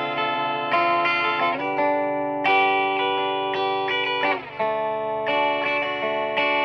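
Electric guitar chords played through a Donner Verb Square Evolution+ mini reverb pedal on its dark C setting, a reverb with an added octave. A new chord is struck about once a second and left to ring. With several notes sounding together, the octave tracking sounds slightly off-pitch to the player.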